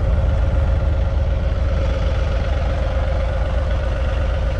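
Compact tractor's diesel engine running steadily at idle, with a strong low throb and a steady hum.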